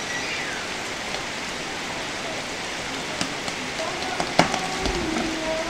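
Steady rain falling, with a single sharp crack about four seconds in.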